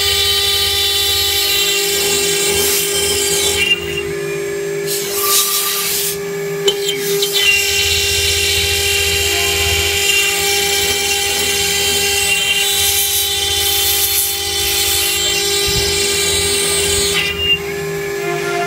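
CNC router spindle running with a steady high whine while the bit cuts through aluminum composite panel. A rougher hissing cutting noise rises and falls a few times over the whine.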